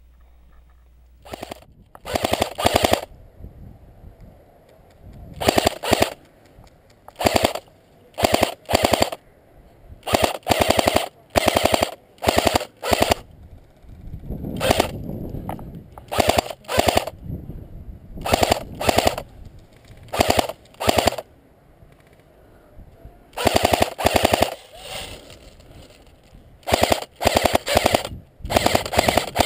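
Airsoft rifle firing on full auto, in many short bursts of rapid clicking, each a second or less, repeated every one to two seconds.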